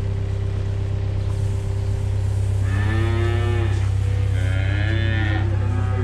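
Holstein calves bawling: two drawn-out calls of about a second each from about two and a half seconds in, and a third starting near the end. A steady low engine hum runs underneath.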